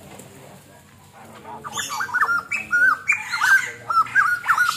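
White-crested laughingthrush calling: after a quiet start, a fast, loud run of chattering notes that bend up and down in pitch begins about a second and a half in and keeps going.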